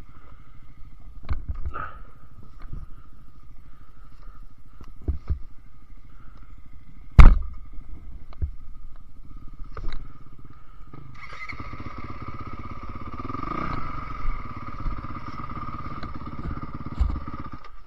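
A Honda dirt bike's engine runs at idle while the bike lies on its side, with scattered knocks and clunks and one loud bang about seven seconds in. From about eleven seconds the engine note grows louder and fuller.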